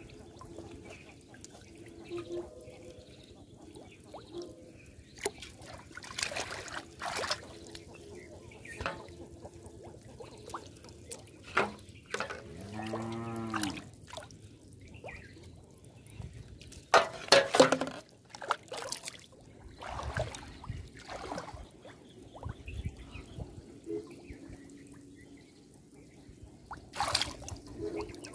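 Pond water splashing, trickling and dripping as hands lift bottle traps and a fish out of the water, with scattered short splashes and the loudest cluster of splashes about two-thirds of the way through. A brief low pitched sound is heard near the middle.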